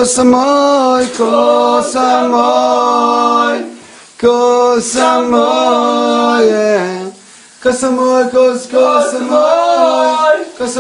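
A man singing in held, pitched notes, with short breaks about four and seven seconds in.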